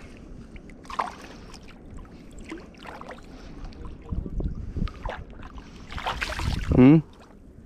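Shallow water sloshing and small splashes around a wading angler as he handles a rope fish stringer. About six seconds in, a caught speckled trout thrashes at the surface with a louder splash, followed by a short, loud shout.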